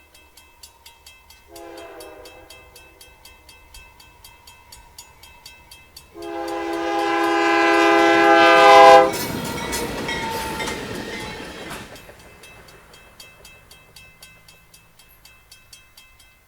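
Diesel locomotive's multi-chime air horn on a CN freight train: the end of a long blast, then a short blast, then a long blast that swells louder as the locomotive closes in, the pattern of a grade-crossing signal. The horn cuts off as the locomotive passes close with a loud rush of engine and wheel noise, under a steady rapid clickety-clack of wheels over rail joints.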